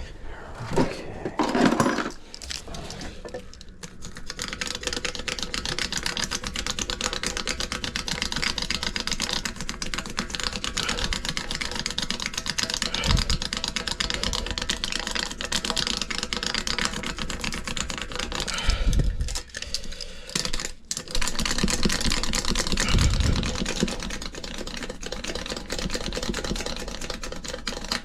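Rapid, steady fine clicking of a hand tire-patch stitcher being rolled over a freshly placed patch inside a tire to press it down onto the cement, with a few dull knocks along the way.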